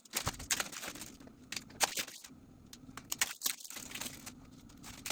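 Scattered light clicks and taps with brief rustles, made by small items being handled and set down.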